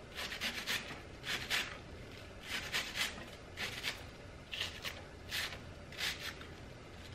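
Kitchen knife slicing through a hand-held leaf of firm, hard cabbage in short, irregular crisp cuts, about one every half-second to second.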